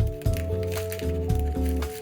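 Instrumental background music: a melody of short held notes changing in quick succession over a steady bass line.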